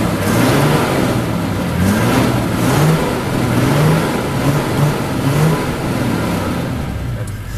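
A safari truck's engine running close by, its pitch wavering up and down as the revs rise and fall.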